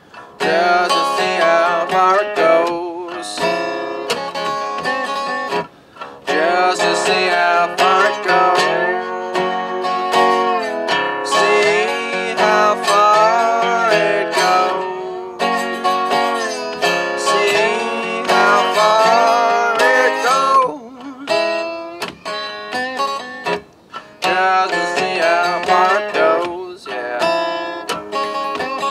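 A man singing a blues song while playing a resonator guitar, with a few short gaps between phrases.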